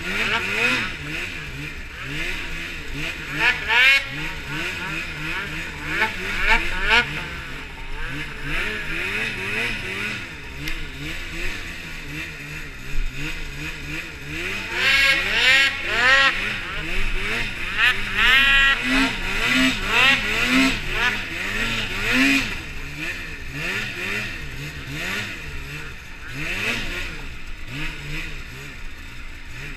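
Polaris snowmobile engine revving up and down over and over as the throttle is worked through deep powder, with a run of sharp rising revs about halfway through.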